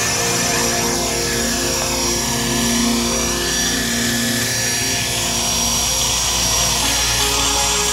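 Electric motor and rotor whine of a Blade SR radio-controlled helicopter, picked up by its onboard camera, the pitch sweeping up and down as the throttle changes.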